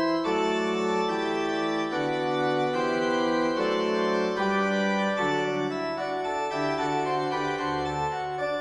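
Background instrumental music: held keyboard notes moving in a slow melody over sustained chords.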